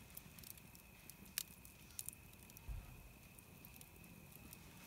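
Wood campfire crackling faintly: a few sparse sharp pops and snaps, over a faint steady high tone.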